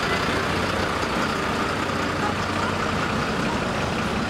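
A large vehicle's engine running steadily with a low hum.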